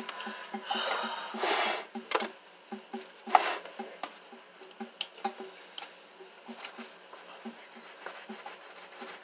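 Kitchen handling sounds at the stove: small clinks and taps of utensils and pans, with two short hissing bursts, about a second in and again near three and a half seconds.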